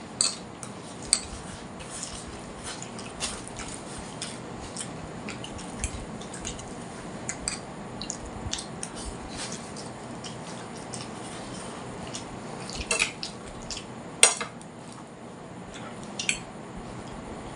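Two people eating Maggi instant noodles from plates: scattered small clicks and taps of eating and plate handling over a steady background hiss, with two louder clicks about thirteen and fourteen seconds in.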